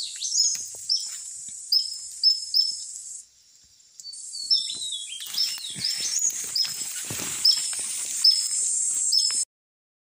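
Tesia calling: a string of short, high chirps that each slide downward, about two a second, thinning out briefly about three seconds in and coming faster afterwards, then cut off abruptly near the end.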